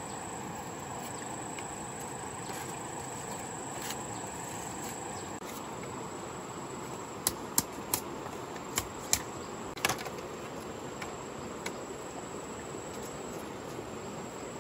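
A steady high-pitched drone of insects. A quick series of about six sharp knocks comes in the middle, a machete striking a wooden stick.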